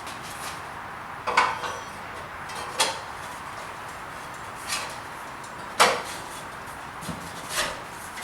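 Pressure washer handle being worked onto the frame, a snug fit: a series of separate metallic clanks and knocks about a second apart, one much sharper than the rest.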